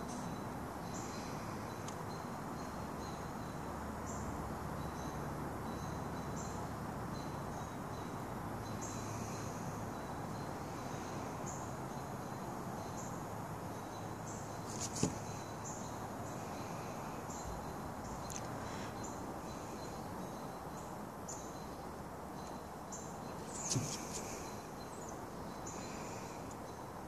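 Outdoor ambience: a steady background hiss, with short high chirps repeating about once a second and two sharp knocks, one about halfway through and one near the end.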